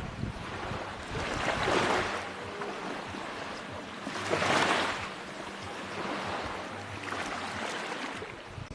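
Sea waves breaking and washing onto a beach, the surf swelling louder about two seconds in and again, most strongly, about four and a half seconds in.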